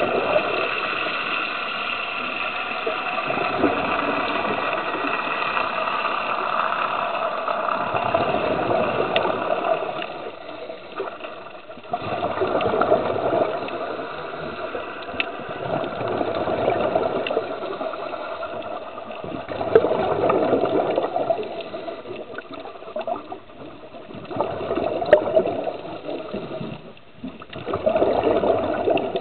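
Underwater water noise: a muffled rushing that swells and fades every few seconds, with a few faint clicks.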